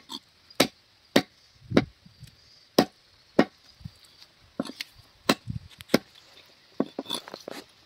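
Broad butcher's knife chopping bone-in chicken on a wooden chopping block: sharp, separate chops about every half second, a short pause about midway, then a quicker run of chops near the end.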